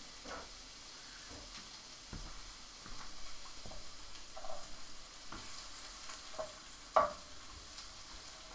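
Diced green bell peppers sizzling in hot oil in a nonstick frying pan as a wooden spoon stirs them around, with scattered knocks and scrapes of the spoon against the pan. The sharpest knock comes about seven seconds in.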